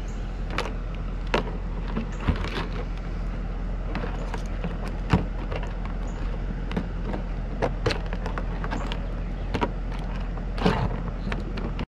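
Scattered sharp cracks and clicks of a live blue crab's shell and legs being pried and torn apart by hand, over a steady low mechanical hum.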